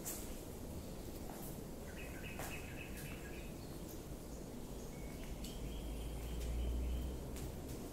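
Quiet ambient room tone with a low rumble that swells about six to seven seconds in. Faint, short high-pitched chirps come twice, and a few soft clicks are heard.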